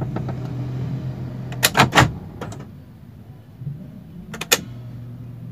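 Toyota Rush at idle with a steady low hum in the cabin: the droning, rumbling noise the owner is complaining of at standstill. The hum fades a little after two sharp knocks about two seconds in and comes back after two more near the end.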